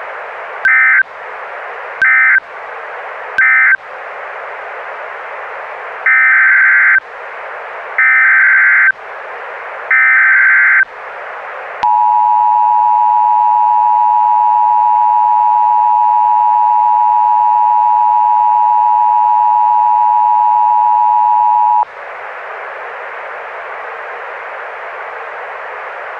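Emergency Alert System tones over a steady hiss. First come three short bursts of warbling SAME digital data, then three longer bursts about a second apart. Then the two-tone EAS attention signal sounds steadily for about ten seconds and cuts off.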